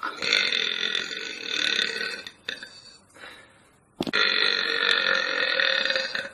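Two long, drawn-out belches of about two seconds each, the second starting about four seconds in, with a couple of short, weaker sounds between them.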